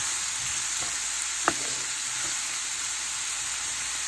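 Diced onion, peppers and celery sizzling steadily in olive oil in a cast iron skillet, with one sharp knock about a second and a half in.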